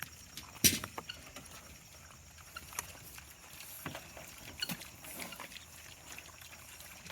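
Piglets chomping on their feed: irregular wet smacking and chewing clicks, the loudest a sharp click just under a second in.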